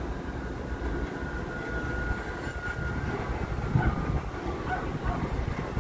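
New York City subway train approaching the station: a steady low rumble of wheels on rail with a faint high steady whine, and a louder knock about four seconds in.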